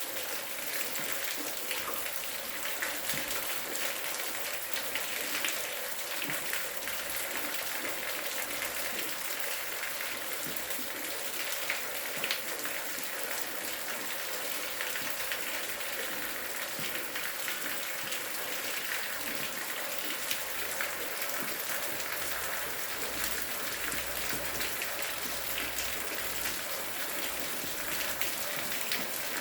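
Steady rain falling, a dense even hiss full of fine drop patter.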